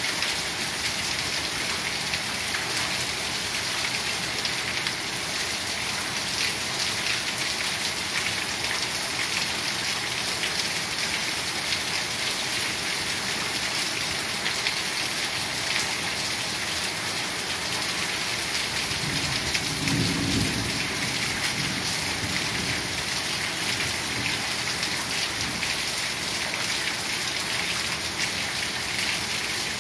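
Heavy rain pouring steadily, with a low rumble of thunder about two-thirds of the way through that lasts a couple of seconds.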